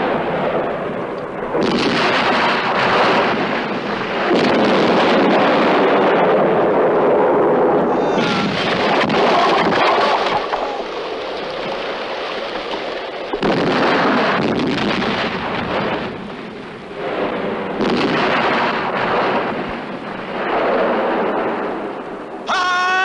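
Battle sound effects: a dense din of explosions and gunfire, with several sudden loud blasts that each roll on for a second or more. A short, wavering pitched cry comes near the end.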